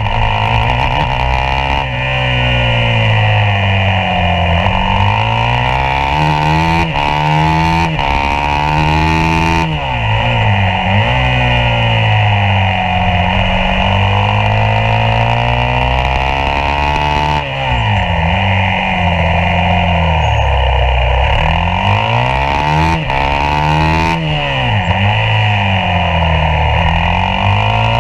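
Yamaha YZ450F's single-cylinder four-stroke engine at race pace, heard from a camera mounted on the bike. The revs climb and fall over and over, with several sudden drops as the throttle is closed or a gear is changed.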